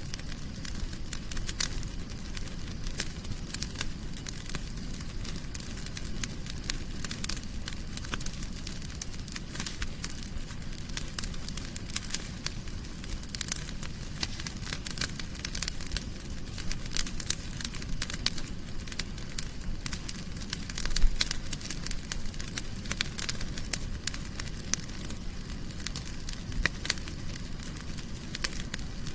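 Fireplace fire crackling, with frequent sharp snaps and pops over a steady low rumble of flames. One louder pop comes about two-thirds of the way through.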